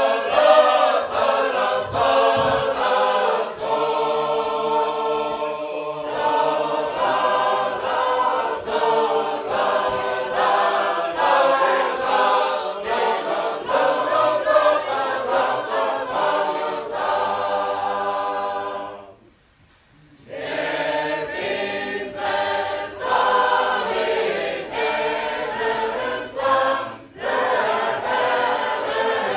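Group of Sacred Harp shape-note singers singing a four-part hymn a cappella. The singing breaks off for about a second roughly two-thirds of the way through, then starts up again.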